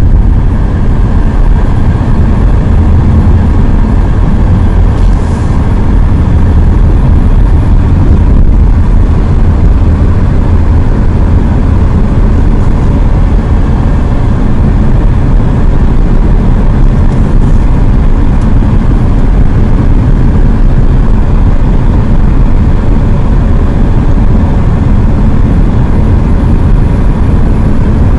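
Steady low rumble of a car driving on an asphalt road, heard inside the cabin: tyre and engine noise.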